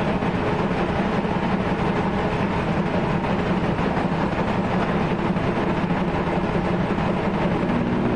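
Steady, loud machinery noise, a continuous low rumble with a dense rattle, from a hydraulic sawdust core plug press and its factory surroundings while the press holds pressure during its moulding countdown.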